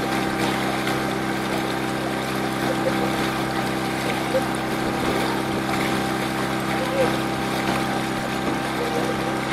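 Engine of a small motor launch running at a steady cruising speed, an even drone, with water rushing along the hull.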